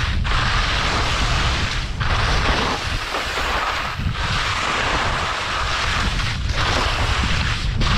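Skis scraping and hissing through soft spring corn snow over moguls, with wind rumbling on the microphone. The hiss breaks off briefly several times, about every one and a half to two seconds, between turns.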